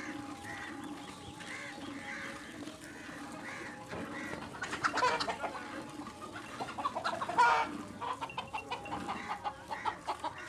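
Chickens clucking in a run of short, evenly spaced calls, with louder bursts of hen calls about five and seven and a half seconds in.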